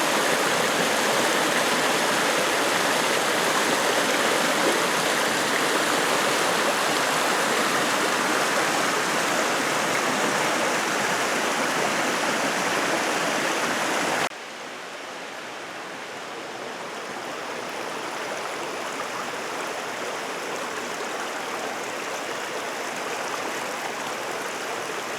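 Steady rush of water at Waimea Falls. Just past halfway it suddenly drops quieter, then slowly grows louder again.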